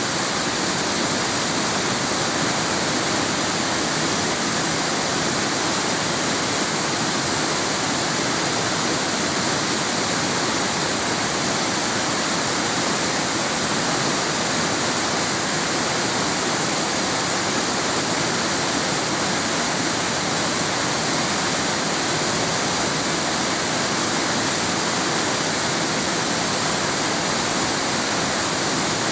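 Steady, unbroken rush of falling water from a waterfall, loud and even throughout.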